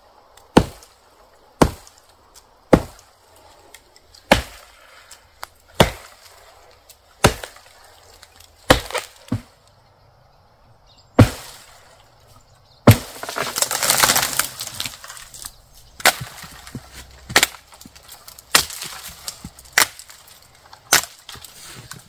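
Axe chopping into a standing dead tree of soft, punky wood: sharp single strikes about every second and a half. About halfway through comes a splintering crash of breaking wood lasting a couple of seconds, then the chopping resumes.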